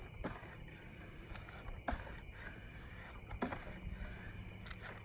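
Squeegee rubbing up and down over transfer tape and vinyl on a truck's body panel: faint scraping with a few light ticks.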